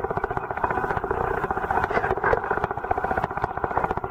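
Steady, rapidly pulsing motor drone heard underwater.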